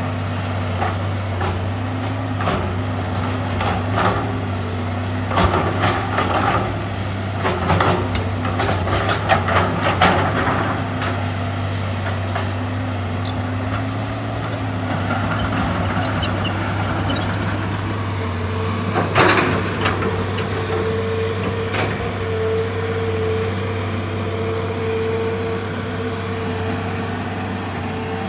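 Hitachi EX200 hydraulic excavator's diesel engine running steadily, with scattered clanks and thuds and one loud clatter about nineteen seconds in. A steady higher whine joins the engine in the second half.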